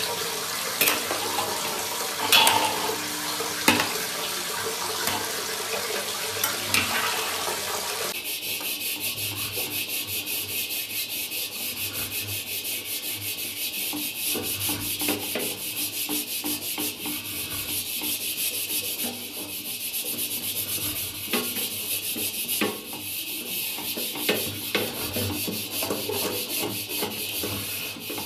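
A few sharp metal clanks of a ladle and wire strainer against a steel wok, then from about eight seconds in a wire scrubber rubbing round the inside of the wok in quick, even back-and-forth strokes.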